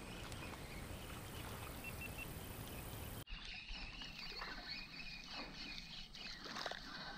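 Steady wind noise on the microphone. About three seconds in it cuts off suddenly, and light irregular splashing follows as a small hooked fish thrashes at the surface close to the bank.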